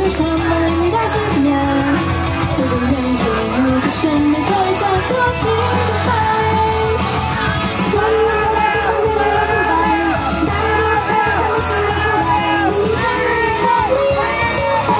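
Female idol group singing a pop song into handheld microphones over a backing track played through PA speakers, echoing in a large hall.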